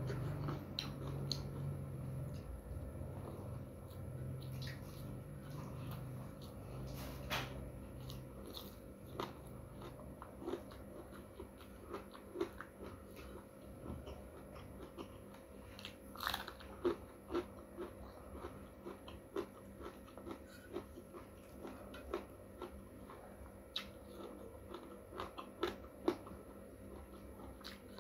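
A person chewing and crunching a hand-eaten rice meal with raw vegetable lalap, close to the microphone: irregular sharp crunches and wet mouth clicks.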